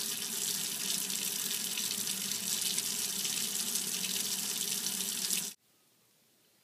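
Water running steadily from a kitchen faucet into a stainless steel sink, cutting off abruptly about five and a half seconds in, after which only faint room tone remains.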